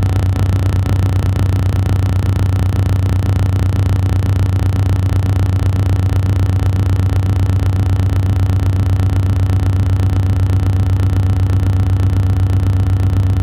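A loud, steady low-pitched hum with a buzzy edge that holds unchanged throughout.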